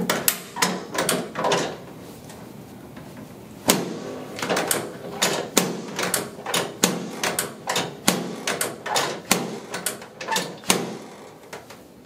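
A quick series of sharp knocks: a handful in the first two seconds, then after a short pause a steady run of about two a second for some seven seconds.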